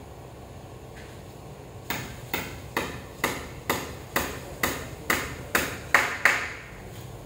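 A hammer striking repeatedly: about eleven sharp blows at a steady pace of roughly two a second, each with a short ring, starting about two seconds in, the last two loudest.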